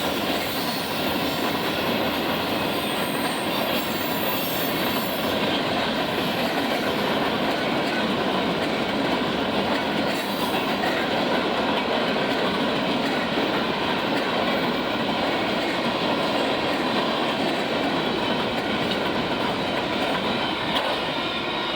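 Freight cars of a Union Pacific mixed freight rolling past: steady wheel-on-rail noise with a faint high wheel squeal.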